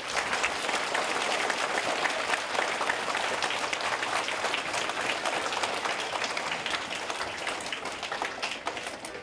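Audience applauding: many hands clapping at once, starting suddenly and easing off slightly near the end.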